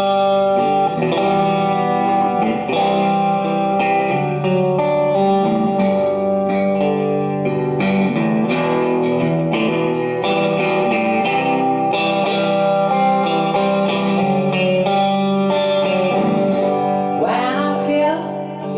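A live rock band playing an instrumental intro: electric guitars through effects with distortion and chorus, electric bass and a drum kit keeping a steady beat.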